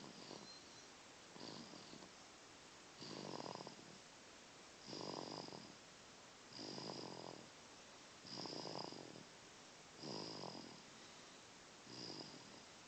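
Snoring in a slow, even rhythm: about eight snores, one every couple of seconds, each lasting about a second and carrying a thin high whistle.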